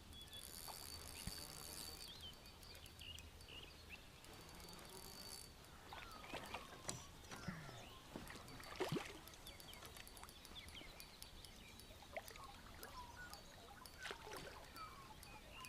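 Faint bird calls, short chirps and warbles scattered throughout, with a high insect-like hiss for the first few seconds and a few soft knocks around the middle.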